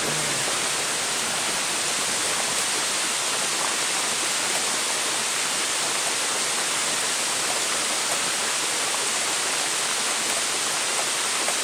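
Heavy thunderstorm rain falling as a steady, even hiss.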